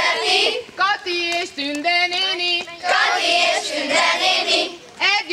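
A group of children singing a song together, the held notes changing syllable by syllable, with stretches where many voices blur into shouting.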